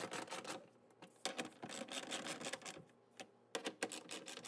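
Rapid, irregular clicking and rattling of hand tools and metal parts being worked inside a car door, in three spells with short pauses between.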